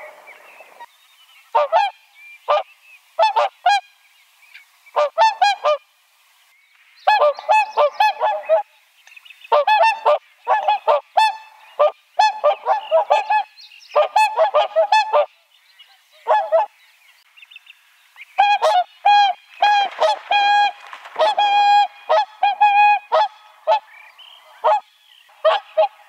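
Several whooper swans calling: short bouts of repeated pitched calls, coming thicker and overlapping in the second half.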